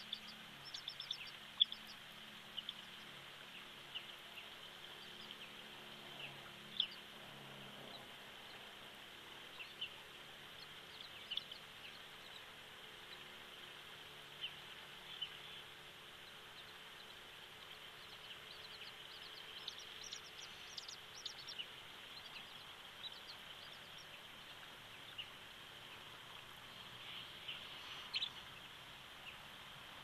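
Faint outdoor ambience: many short, high chirps scattered over a steady high-pitched hiss, with a faint low drone in the first several seconds that fades out around eight seconds in.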